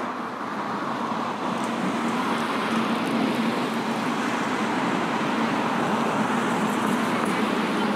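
A road vehicle passing on the street: steady tyre and engine noise that builds over the first couple of seconds and then holds.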